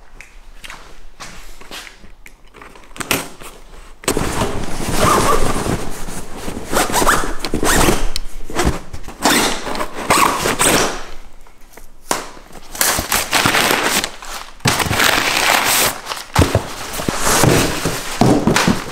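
A tall cardboard shipping box being opened and shaken out, with brown kraft packing paper rustling and crinkling and the box knocking and thumping. Quieter handling for the first four seconds, then continuous loud rustling.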